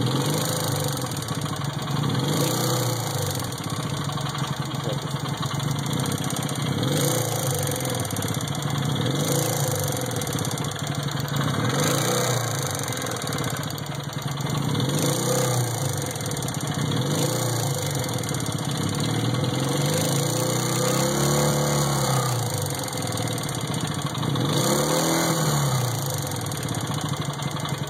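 Regal Raptor DD250E motorcycle's twin-cylinder engine blipped repeatedly, its note rising and falling every two to three seconds, with a knock that is taken for a worn piston (wrist) pin in the left cylinder.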